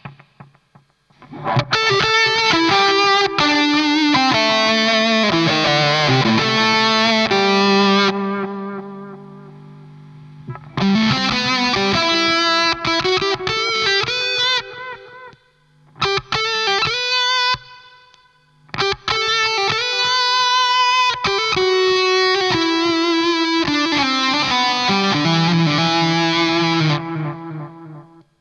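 Electric guitar played through a Fattoria Mendoza drive pedal, giving a distorted tone. It plays four phrases with short breaks; the first rings out before the second begins.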